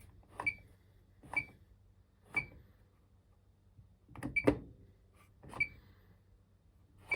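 Electrolux Quickwash commercial washing machine's control panel being operated in service mode, about seven times. Each step gives a short click with a brief high beep, spaced irregularly.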